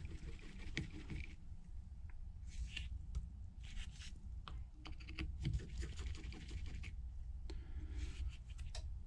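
Faint, irregular small clicks and light scraping from a brass-handled precision screwdriver backing tiny screws out of a metal bracket plate inside an iPhone 12 Pro.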